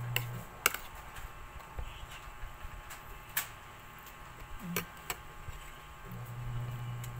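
Metal spoon clinking against a dish while eating: about five sharp, scattered clinks.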